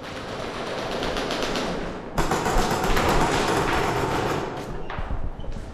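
Rapid full-auto airsoft gunfire, a dense stream of shots: a short break about two seconds in, then a louder stretch that thins out near the end.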